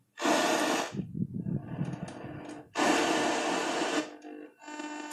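East German 1355.AA civil-defence tube radio (Rundspruchempfänger) playing through its speaker as its tuning knob is turned: hissing static with a buzzing test tone from a signal generator cuts in and out in bursts about a second long, with a lower hum between. The tuning is touchy, so the signal keeps dropping out and coming back.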